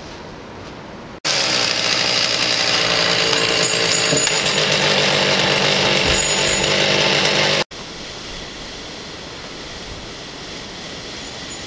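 A chainsaw running steadily for about six seconds, cutting in abruptly about a second in and cutting off just as abruptly; before and after it, only a low, even background noise.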